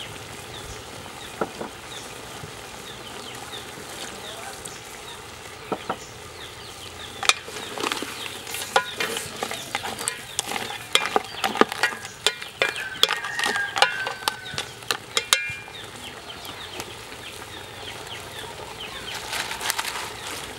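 Wooden spoon stirring crabs and river prawns in an aluminium pot, the shells knocking and clattering against the pot and each other in a quick run of sharp clicks that starts about seven seconds in and stops about eight seconds later.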